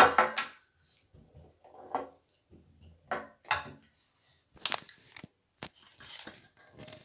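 Handling noise: irregular rubbing, clicks and knocks as a phone is moved and brushed against plastic dolls and a plastic toy table, loudest at the start.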